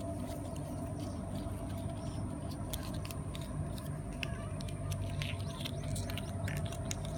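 Faint crinkles and small clicks of a tiny paper box being folded along its creases by hand, over a steady low hum.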